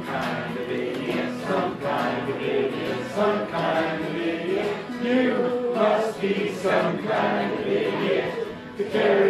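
Singing: voices carrying a tune with held, sliding notes.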